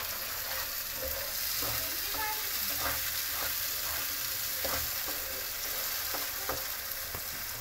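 Onion-garlic and tomato masala sizzling in oil in a non-stick pan, with a spatula stirring and scraping through the thick paste in irregular strokes, about one every half-second to second. The tomato paste has just been added and is frying into the masala.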